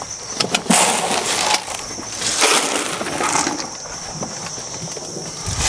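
Crunching, rustling noise in three bursts, with a few sharp clicks near the start, over a steady high insect drone of crickets.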